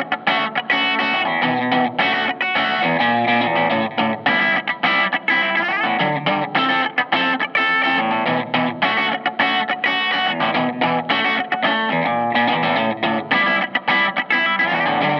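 Thinline Telecaster-style electric guitar with handwound P90 pickups played through an amplifier: a continuous stream of picked notes with no break.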